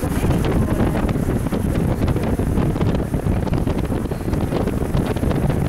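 Wind buffeting the microphone of a camera filming from a moving vehicle: a steady, low rumble of rushing air, with the vehicle's road noise beneath it.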